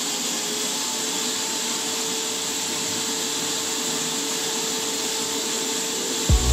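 Handheld electric paint spray gun running while spraying anti-rust paint: a steady motor whine with the rush of air and spray. Music cuts in at the very end.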